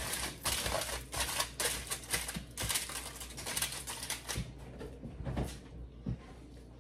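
Hot oil crackling and spattering as flounder fries, a rapid run of pops that thins out after about four seconds.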